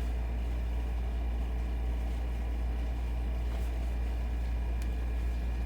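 Steady low background hum, with a couple of faint high-pitched whine tones over it and one faint tick near the end.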